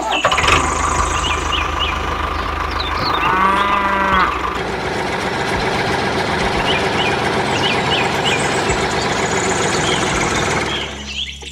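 A motor running steadily, cutting out just before the end, with a cow mooing once about three seconds in and birds chirping.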